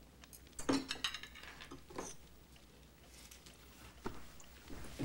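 Cutlery clinking against plates during a meal: a quick cluster of clinks about a second in, then a few scattered ones.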